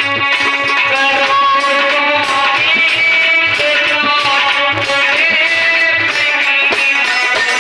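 Instrumental interlude of a ghazal: a guitar-like plucked-string lead plays a wavering melody over a steady beat.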